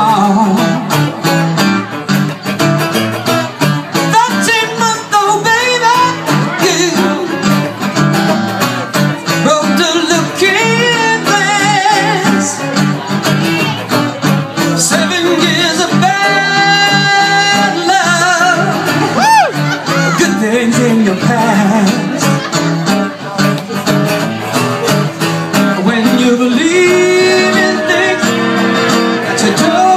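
Live acoustic guitar strumming with a man singing over it into a microphone, including some long held and gliding notes around the middle.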